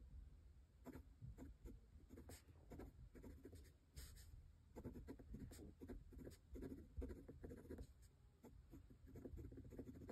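Faint scratching of a Pilot Prera fountain pen's fine steel nib writing on paper, in short, irregular strokes as words are written.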